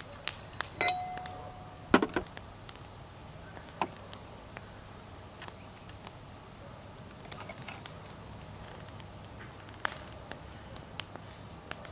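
Glassware clinks and knocks as wine is poured: a wine glass rings briefly about a second in as the bottle touches it, then a sharp knock and a few smaller clicks as the glass bottle is set down on the table and its cork pushed back in.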